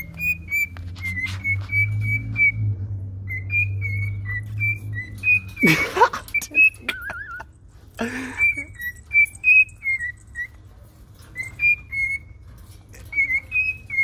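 Cockatiel whistling a tune: a string of short, clear notes stepping up and down in pitch, with a louder rising call about six seconds in and a brief wavering trill just after.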